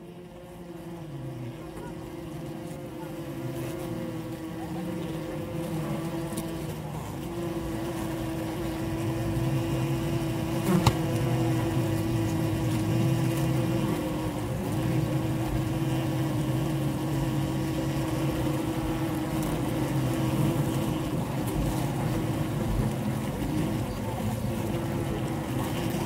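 Honey bee colony humming, heard close up from a microphone inside the hive: a steady, dense drone with one clear pitched hum, fading in over the first several seconds. A single sharp click about eleven seconds in.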